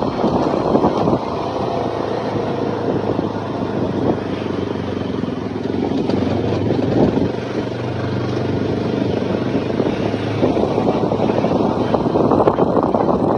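Motorcycle riding along: wind rushing over the microphone with the engine's steady hum underneath.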